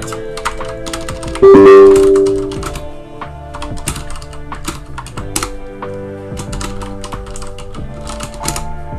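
Computer keyboard typing, a run of quick keystroke clicks, over background music with steady held notes. A loud held note swells about a second and a half in and fades over the next second or so.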